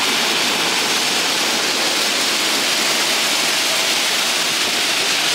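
Heavy rain pouring down, a steady hiss.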